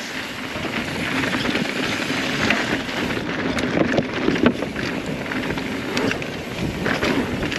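Mountain bike riding down a dry, loose dirt trail: steady tyre and trail noise with wind on the microphone and frequent short knocks and rattles from the bike over rough ground.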